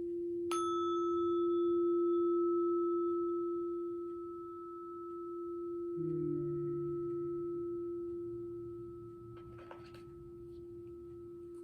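Sustained ringing tones of sound-healing instruments: a steady, pure low tone swells and fades slowly throughout. About half a second in, a higher ringing tone is struck and rings on.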